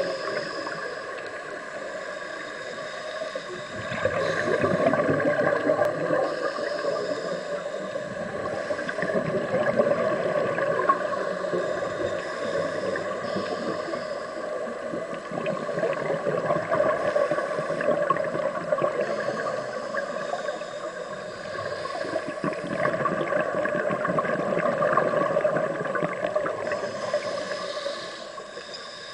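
Underwater sound of scuba divers' exhaled bubbles gurgling from their regulators, swelling and fading every few seconds, over a steady hum.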